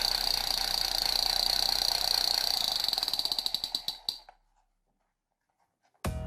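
Toy gun's rapid electronic firing rattle, a fast buzzing run that slows into separate clicks and stops about four seconds in; sharp strikes start again near the end.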